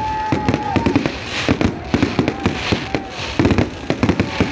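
Fireworks going off in a rapid, irregular string of bangs and crackles, with a few short whistling tones near the start.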